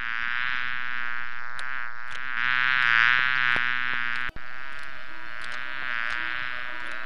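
Insect buzzing sound effect for a cartoon bee: a steady, slightly wavering buzz, with small clicks scattered through it and a brief cut about four seconds in.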